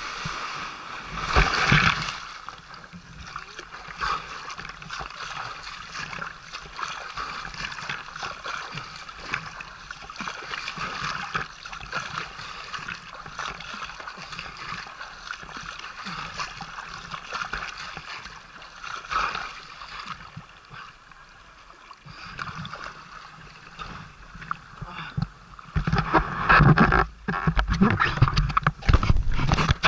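Water rushing and splashing past a camera held just above the surface while the rider is towed on a wakeboard, with wind on the microphone. Near the end it turns louder and rougher, with knocks.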